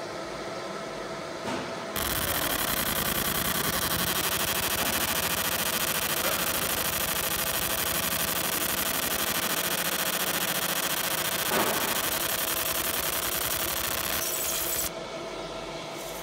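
Fiber laser marking machine etching lettering into a black-coated aluminium plate: an even buzzing hiss from the laser pulses on the metal starts about two seconds in and stops about a second before the end, over the machine's steady hum.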